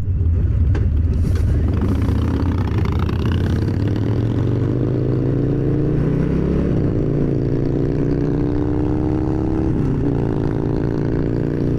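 Harley-Davidson Street Bob's V-twin engine pulling away from a stop. Its pitch climbs steadily for several seconds, then drops with a gear change near the end and holds steady.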